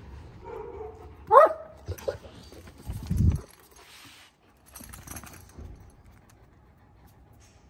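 Year-old Kangal dogs playing: a sharp rising yelp about a second and a half in, then a short deep growl around three seconds, with fainter scuffling after.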